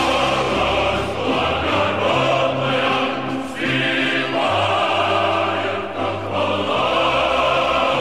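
Background choral music: a choir singing slow, sustained chords that change every second or so.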